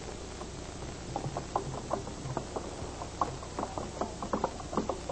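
Soft, irregular clicking and tapping, several light knocks a second, over a low steady hum.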